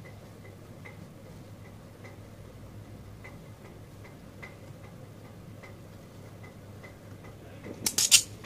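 Faint regular ticking, about two and a half ticks a second, over a low steady hum. Near the end comes a short crackling rustle of satin fabric being handled.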